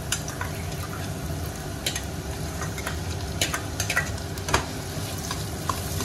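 Chopped onion sizzling in hot oil with cumin, mustard seeds and curry leaves in a nonstick kadai. Scattered clicks and scrapes come in as a slotted spatula stirs the onion through the oil in the second half.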